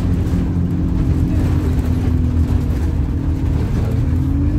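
Bus engine heard from inside the passenger cabin, running hard at high revs as the bus drives along. The pitch holds steady, then rises a little near the end.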